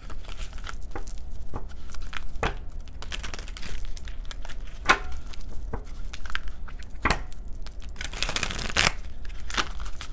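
A deck of oracle cards being shuffled by hand: a run of quick snaps and riffling flicks as the cards slide over each other, with a longer, denser burst of shuffling near the end.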